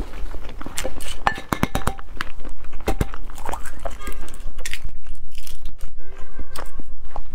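Shell of a boiled huozhuzi (fertilized egg) crackling as fingers crack and peel it away, a rapid run of small sharp clicks.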